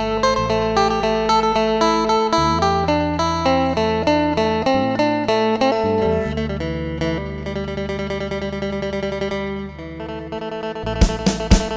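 Instrumental music: a plucked guitar melody of quick, regularly spaced notes over held bass notes, with drum hits coming in near the end.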